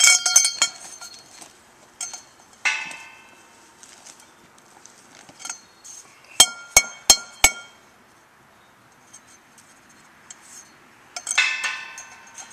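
Steel angle-iron pieces clanking and ringing as they are handled and fitted into a welded steel frame. There are ringing clanks at the start, one a little under 3 seconds in and another near the end, and four sharp metal strikes in quick succession about halfway through.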